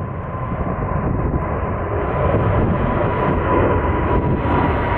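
Airbus A330-900neo's two Rolls-Royce Trent 7000 turbofans at takeoff thrust as the airliner climbs out: a deep rumble with a steady fan whine, growing gradually louder.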